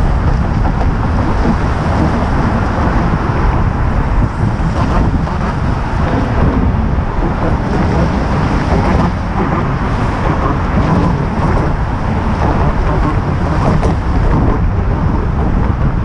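Steady road traffic passing on the bridge lanes alongside, mixed with wind buffeting the camera's microphone.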